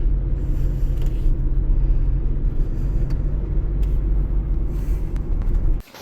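Steady low rumble of a motor vehicle on the move, engine and road noise, cutting off suddenly near the end.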